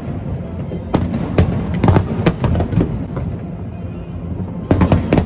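Aerial fireworks shells bursting in a rapid, irregular series of sharp bangs over a continuous low rumble of further explosions, with a dense cluster of bangs near the end.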